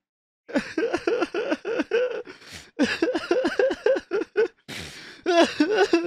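A person sobbing in quick choppy vocal bursts, about four a second, with a breathy gasping in-breath shortly before the end. It starts about half a second in.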